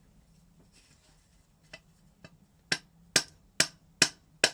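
Gentle hammer taps driving the water pump shaft and seal out of an Aprilia RX50 engine casing: two faint taps, then five sharp ones at about two a second near the end.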